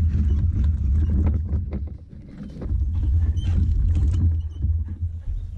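Wooden canoe hull being moved over gravel and grass, heard through a camera mounted on its deck: a loud, steady low rumble with irregular knocks and rattles. It eases for a moment about two seconds in.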